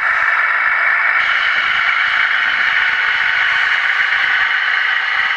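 Model train running along the layout's track: a steady, loud whirring hiss of the running train, which shifts slightly higher in pitch about a second in.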